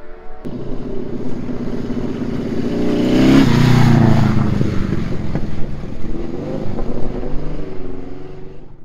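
Three-cylinder Laverda racing engine of the Haider Laverda motorcycle running and revving as the bike rides off. The engine note swells to its loudest about three and a half seconds in, then falls in pitch and fades near the end.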